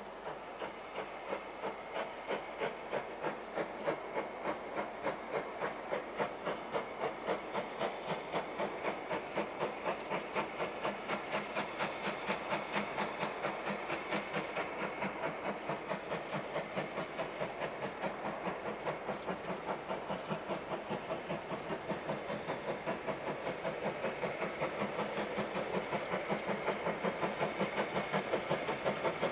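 LMS Stanier 8F 2-8-0 steam locomotive No. 48305 working a train, its exhaust beats in a fast, steady rhythm that grows gradually louder as it approaches.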